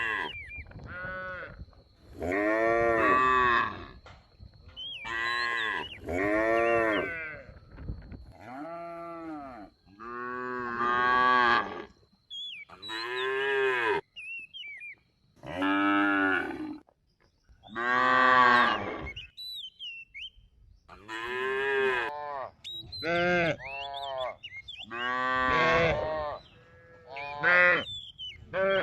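Cattle mooing over and over, about a dozen calls of a second or so each that rise and fall in pitch, with short gaps between them.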